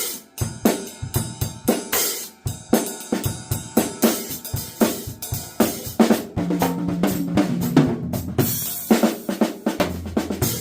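Drum kit being played in a steady groove, with snare hits over bass drum, hi-hat and cymbal crashes. Some sustained low notes ring under the beat in places.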